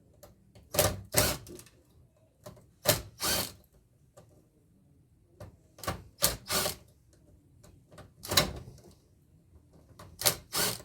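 Sharp knocks and clatter from the parts of an air-conditioner blower being handled and worked loose, about ten hits, mostly in pairs, every couple of seconds.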